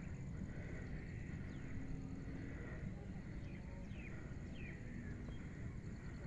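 Open-air ambience: a steady low rumble with birds calling over it, three or four short falling chirps in the middle and faint repeated high pips near the end.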